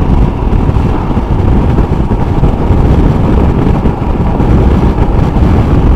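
Motorcycle riding at steady road speed: a continuous low rush of wind over the microphone mixed with the bike's engine.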